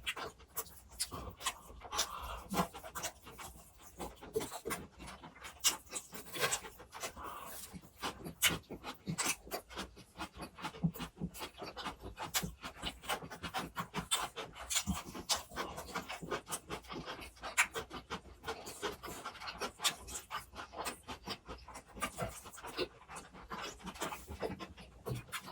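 Close-miked eating of grilled pork belly: steady chewing and wet mouth sounds, with many short irregular clicks and snaps.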